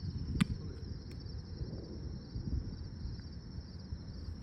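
Insects chirring steadily at a high pitch. About half a second in comes one sharp slap of a volleyball being hit, with a fainter tap about a second in.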